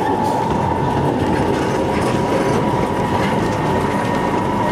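Snowdon Mountain Railway rack-and-pinion train running on the mountain line: a steady rumbling rattle with a high whine held throughout.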